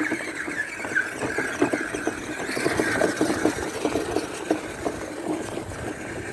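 FTX Outback RC crawler's electric motor and gearbox whining under load, steady in pitch, with many small clicks and knocks mixed in.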